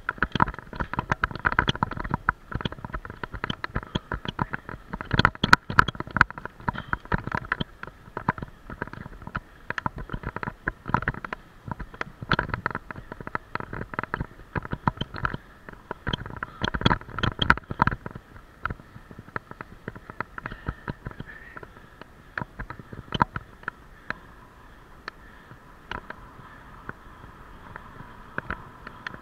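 Riding noise picked up by a bicycle-mounted camera: rapid, irregular rattling and knocking as the bike rolls over the paved road, over a steady rumble. The rattling thins out over the last third.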